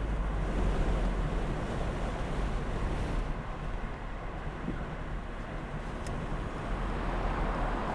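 A car driving, heard from inside: a steady low rumble of road and engine noise with no sharp events.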